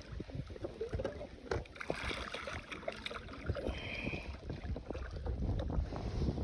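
Handling noise aboard a kayak: irregular knocks and rubbing against the hull over a low rumble, as the anchor is hauled up.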